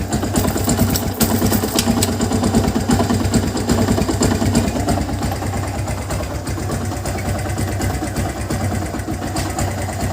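Kawasaki Barako II motorcycle engine running steadily with a rapid knocking from inside the engine, the sign of a worn internal part.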